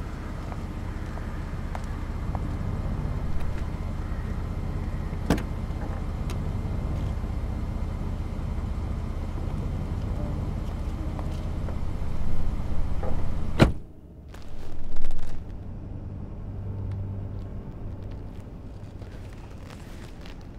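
A car running, with its low steady hum, while the passenger door stands open; a car door slams shut about two-thirds of the way through, and the outside noise drops away to the quieter car interior.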